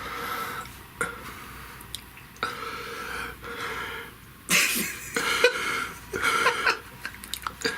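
A man's voice imitating an overweight man's laboured wheezing: a series of rasping, heaving in-and-out breaths, louder and quicker from about halfway through.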